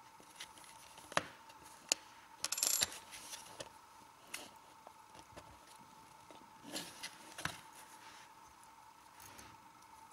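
A small metal LED flashlight being handled over its box: a few sharp clicks and light knocks, with a short scraping rustle about two and a half seconds in. A faint steady whine runs underneath.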